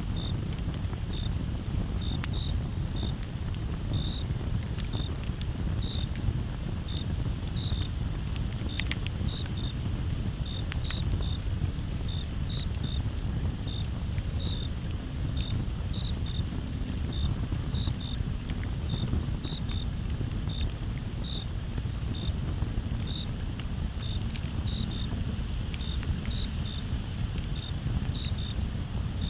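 Crickets chirping steadily, about one or two short chirps a second over a constant high hiss, with a campfire crackling underneath in scattered sharp pops over a low, even rush.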